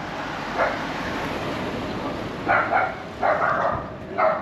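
A dog barking in short, separate barks: one about half a second in, then a quick run of barks from about two and a half seconds, with another right at the end.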